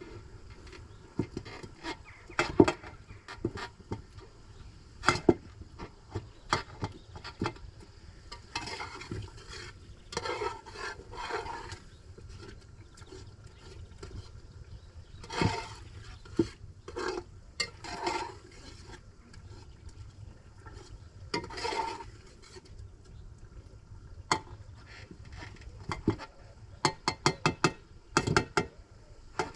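Cooking utensils knocking and scraping against pots and dishes while food is stirred and handled, with a quick run of sharp taps near the end.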